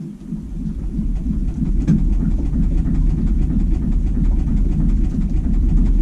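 Steady low rumble with fine rapid ticking as the Sens's front suspension is put to the test, building over the first second or two. No distinct knock stands out; the repair, hose slipped over the touching spring coils, seems to have helped.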